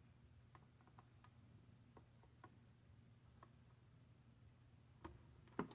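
Near silence: a faint steady low hum with scattered faint ticks, then two louder clicks near the end.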